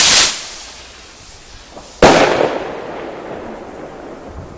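Firework rocket from a Keller assortment: a loud rushing hiss from its motor that dies away within the first half second, then about two seconds in a sharp bang as its burst charge goes off, with an echo that trails off.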